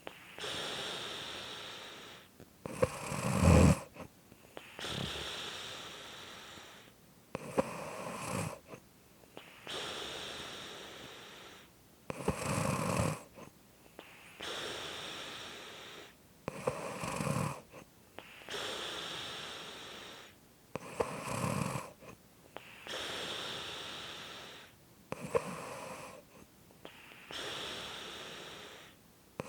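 Snoring in a regular breathing cycle. A short, low, rasping snore alternates with a longer airy breath, six times about every four to five seconds. The loudest snore comes about three seconds in.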